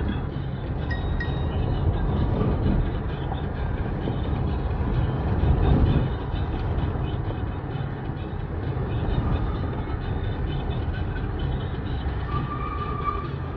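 Steady low rumble of a moving road vehicle: engine and tyre noise on the road, swelling briefly about halfway through.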